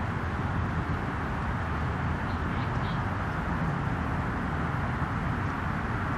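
Steady outdoor background noise, a low rumble with hiss and no breaks, with a few faint short bird chirps about two and a half seconds in.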